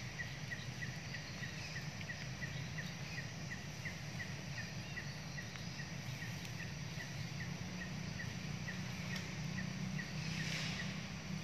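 A bird calls a short high pip over and over at an even pace, about three a second. A steady low hum runs underneath, and there is a brief rustle near the end.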